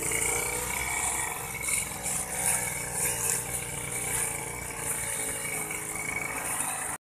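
Backpack brush cutter's small engine running after being stripped and rebuilt, its level rising and falling a little.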